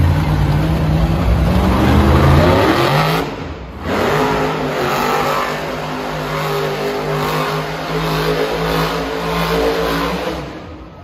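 Monster truck's supercharged V8 engine revving, its pitch rising for about three seconds. It drops off briefly, then runs steadily at high revs and fades out near the end.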